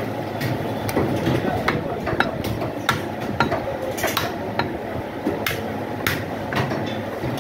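Heavy meat cleavers chopping on wooden butcher's blocks: irregular sharp knocks and clacks, roughly two a second, over busy market hubbub with voices.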